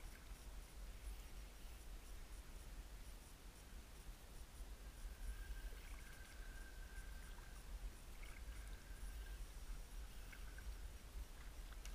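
Faint sounds of paddling a folding kayak: a low rumble with light scratching and small ticks from the paddle and hull. A thin, steady high tone runs for a few seconds midway.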